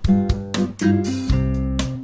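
Background music played on plucked guitar: a quick run of picked notes over a sustained bass note that comes in a little past the middle.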